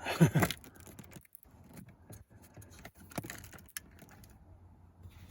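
Faint, scattered clicks and light rattles of wiring and connectors being handled, after a man's voice trails off in the first half second.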